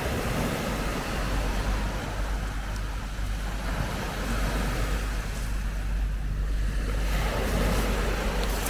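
Steady seafront outdoor noise: a continuous wash with a deep low rumble, swelling slightly near the end.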